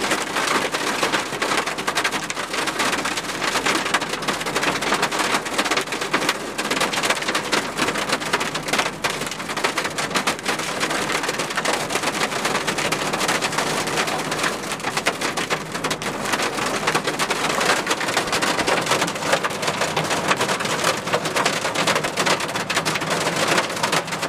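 Hail and heavy rain pelting a truck's roof and windshield, a dense, steady patter of countless small impacts heard from inside the cab.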